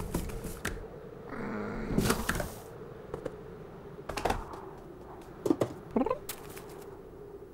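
Cartoon sound effects of a cat scrambling through a window: scattered clicks and scrabbling, a short burst of hiss about two seconds in, then two short rising cat-like calls about five and a half and six seconds in.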